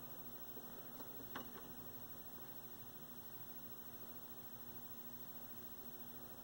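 Faint steady electrical mains hum, with two small clicks between one and one and a half seconds in, the second louder.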